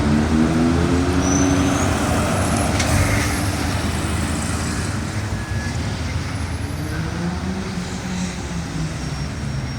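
Road traffic: a motor vehicle's engine fading away as it passes, its pitch falling, over a steady traffic hum. Another engine note rises faintly near the end.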